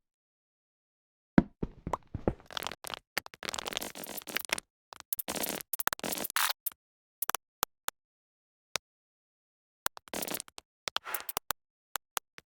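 Edited collage of short sound effects: sharp clicks and brief bursts of noise cut together choppily between stretches of dead silence, densest about five to seven seconds in.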